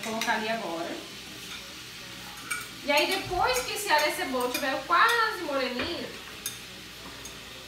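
A metal spoon scraping chopped onion and garlic off a plate into a pot of hot oil, the scrapes squealing in wavering pitched bursts at the start and again from about three to six seconds in, over a light sizzle of frying.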